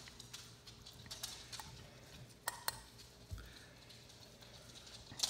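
A fork clicking and tapping against a dinner plate while cutting into roasted chicken: a few sharp, irregular clicks, with a louder tap near the end.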